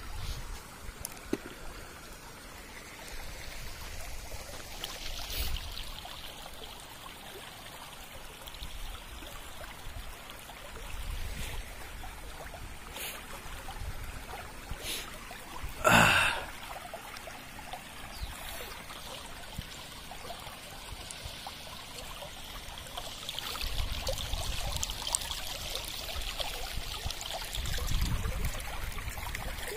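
Small, clear jungle stream flowing and trickling over rocks, a steady gentle burble. About halfway through, one short bump is the loudest sound, with a few fainter clicks elsewhere and low rumbles near the end.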